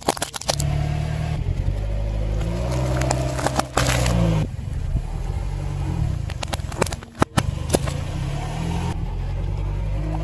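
Car engine running at low revs as its tyre slowly rolls over and crushes objects on asphalt, with crackling and several sharp snaps, including an aluminium soda can being crushed and bursting.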